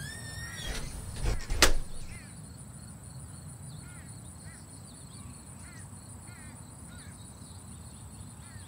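A front door creaking and then shutting with a thump and a sharp latch click about a second and a half in. After that, small birds chirp now and then over a steady high insect buzz.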